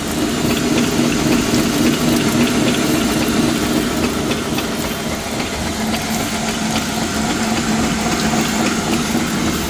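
Hollymatic 180-A mixer grinder running with both its mixing paddles and grinding auger engaged through the clutch: a steady hum from the three-phase electric motor and gear drive.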